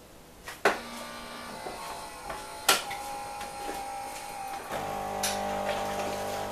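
Melitta CI Touch bean-to-cup coffee machine starting a drink: two sharp clicks in the first three seconds over fainter mechanical whirring, then about five seconds in a motor starts and runs with a steady hum.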